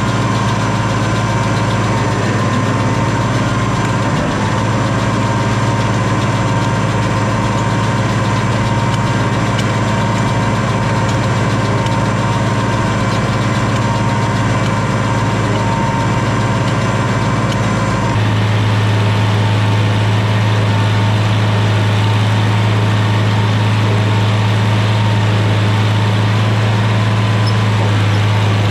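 Farmall 706 tractor engine running steadily. About eighteen seconds in, the sound changes abruptly to a stronger, deeper hum.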